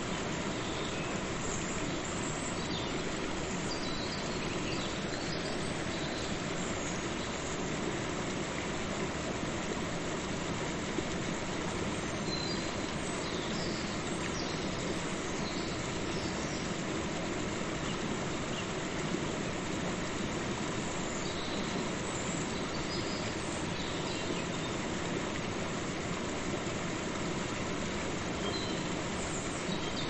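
Waterfall and river water rushing steadily in an even, unbroken roar.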